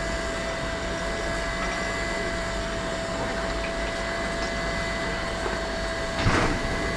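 Steam locomotive BR 03 1010 standing under steam: a steady hiss with a steady whine through it, and a single clank about six seconds in.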